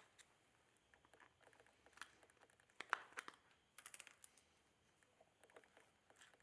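Faint, scattered clicks and light scrapes of a chainsaw's side cover and parts being handled and cleared of packed wood debris. A sharper knock comes about three seconds in, followed by a few quick ticks.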